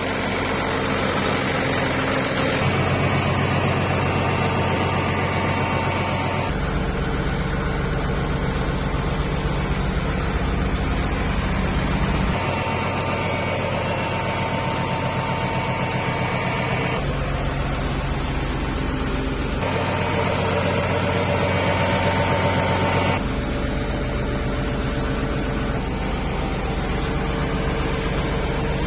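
EBRO H 135 DT tractor's Nissan diesel engine running steadily, its tone shifting abruptly several times.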